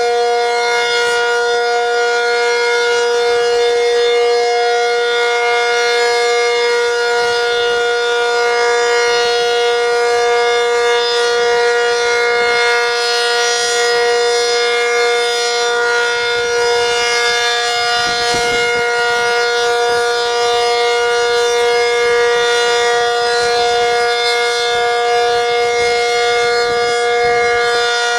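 ACA Cyclone 125 dual-tone rotating tornado siren sounding a steady alert: two held pitches sound together as one unbroken, loud chord with a rich buzzy overtone series.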